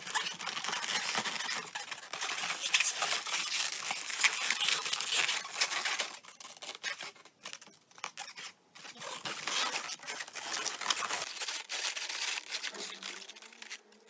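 Inflated latex modelling balloons rubbing and squeaking against each other and against the hands as they are pushed and twisted into shape, with a few short pauses about halfway through.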